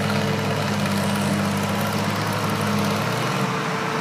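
Co-op No. 3 tractor's engine running under load as it pulls a weight sled down the track, a steady engine note whose lower tones change about three seconds in.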